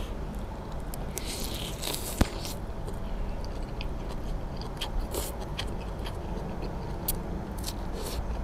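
Person eating khanom jeen rice noodles, slurping strands of noodles and chewing in short hissy bursts, with light clicks of fork and spoon against a plate. A sharp click about two seconds in is the loudest sound.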